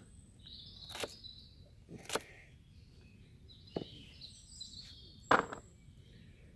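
Knife chopping vegetables on a makeshift chopping block, about five sharp, irregular strikes roughly a second apart, two of them close together a little past the middle.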